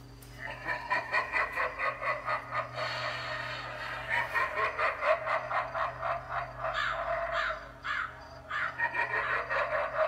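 Animated foam jack-o'-lantern prop's built-in speaker playing a recorded cackling evil laugh in rapid pulses, with a short break about eight seconds in before it starts again. A steady low hum runs underneath.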